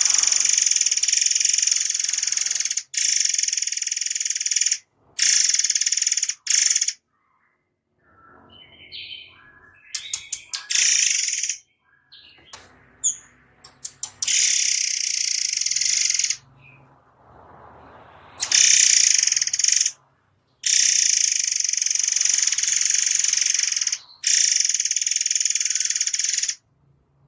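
Murai songbird singing a dense, rattling rapid-fire trill ('tembakan rapat') in long loud bursts that start and stop abruptly, with quieter gaps of short chirps in between.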